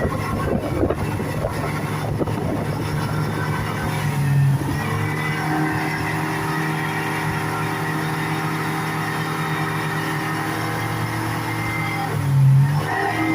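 Speedboat engine running at a steady speed, with a rushing noise over it in the first few seconds; the engine note briefly swells twice, about four seconds in and again near the end.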